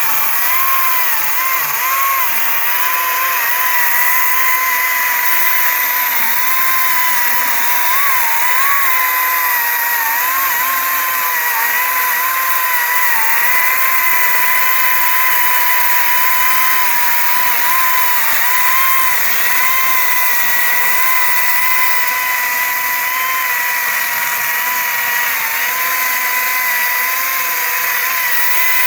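Echo DCS-2500T 56-volt brushless electric chainsaw running continuously while cutting wood: a steady high whine whose pitch dips slightly now and then as the chain bites.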